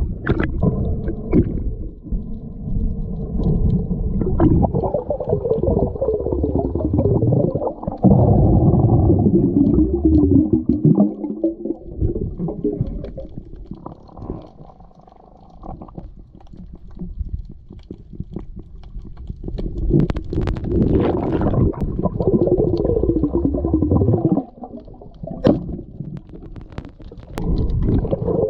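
Muffled underwater rumbling and gurgling of water moving past an action camera's waterproof housing, swelling louder and quieter, with a few sharp clicks.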